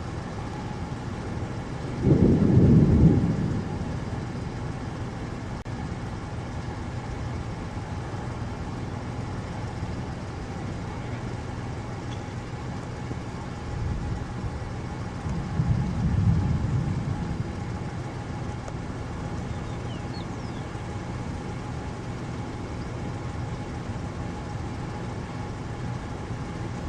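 Roar of a violent wedge tornado, a steady rushing rumble, with two louder low rumbles lasting a second or two, about two seconds in and again about fifteen seconds in.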